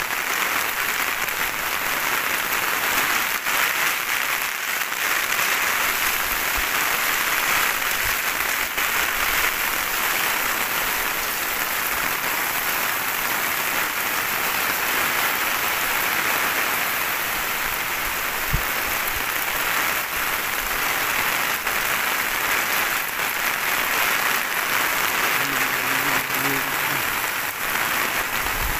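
Heavy tropical rain pouring steadily, a dense, even hiss of downpour on a wet street and the surroundings.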